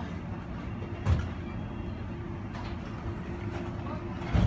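Steady low rumble of an airport terminal's indoor background noise with a faint constant hum. Two dull thumps, one about a second in and one at the very end.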